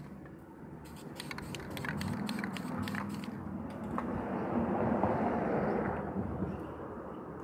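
Aerosol spray-paint can: a quick rattle of clicks in the first half, then a hiss of paint spraying that swells and fades in the second half.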